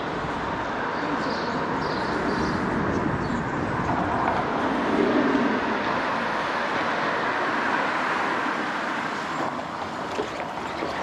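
Steady road-traffic noise, swelling a little around the middle.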